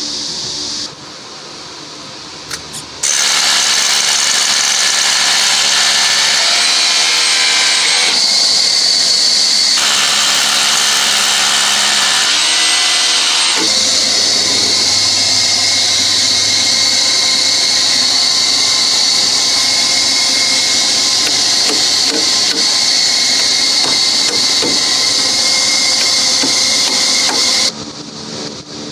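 Electric power tool running loud and steady, starting suddenly about three seconds in and cutting off near the end, its whine shifting in pitch a few times early in the run.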